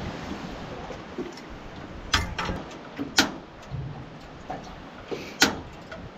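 A few sharp clicks and knocks of a portable gas cooker being handled and lit, over a steady low hiss. The burner itself runs almost silently.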